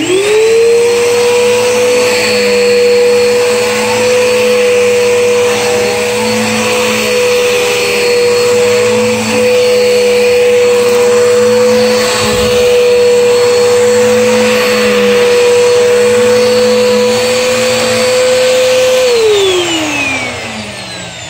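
Upright vacuum cleaner switched on, its motor spinning up within a second to a steady high whine with a rushing hiss of air. About 19 seconds in it is switched off and the whine falls away as the motor winds down over a couple of seconds.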